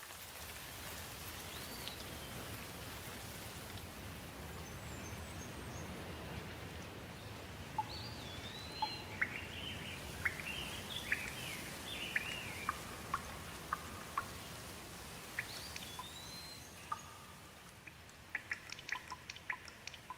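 Steady rain falling, with birds chirping and calling over it, busiest in the middle. Near the end the rain thins and close water drips tick quickly.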